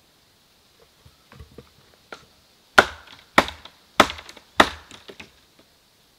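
Firewood being chopped on a wooden stump: a few light knocks, then four hard, sharp strikes about half a second apart in the second half.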